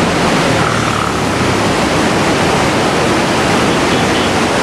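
Steady, even rushing roar of the flooding Koshi River pouring through the barrage's open gates, with a faint low hum underneath.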